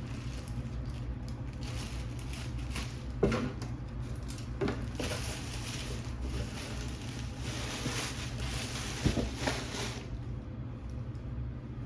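Plastic packaging and clothing rustling and crinkling as garments are unwrapped, with a few soft knocks of handling.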